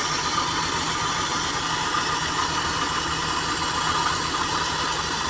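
Six-cylinder BMW engine idling steadily with a misfire; its ignition coils on cylinders 2 and 6 are not firing.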